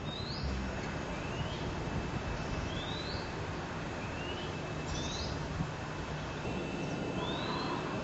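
A bird calling: short upward-sweeping chirps, about six of them a second or so apart, over steady background noise.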